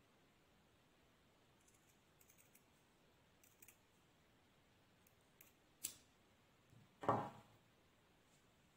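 Scissors snipping through thin fabric in a few faint clicks, one sharper about six seconds in. A louder dull knock follows about seven seconds in as the scissors are set down on the wooden table.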